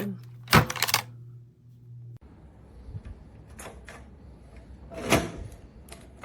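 Sharp knocks and clunks from handling a steel safe, door-like: a loud cluster about half a second in, then scattered softer knocks, with a stronger one near the end.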